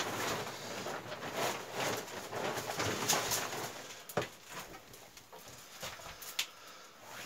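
Dry peeled willow rods rustling and scraping against one another as they are handled and gathered into a bundle, with a few sharp clicks of rod against rod in the second half.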